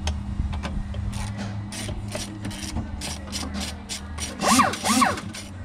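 Hand sanding with sandpaper: a steady rhythm of rasping strokes, about three a second. Near the end come two short squeaks that rise and fall in pitch, the loudest sounds here.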